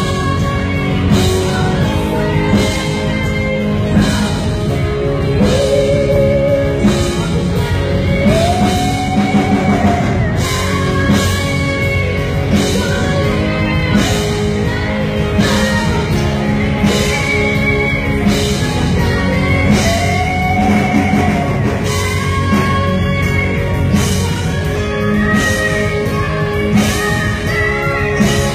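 Rock band playing: drum kit keeping a steady beat under bass and electric guitars, with a lead melody bending up and down over them.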